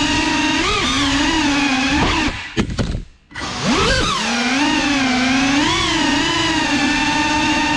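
Geprc 5-inch FPV quadcopter's motors and propellers whining, the pitch wavering with the throttle. About two and a half seconds in there are two sharp knocks and the motors cut out briefly, then spool back up with a rising whine and settle again.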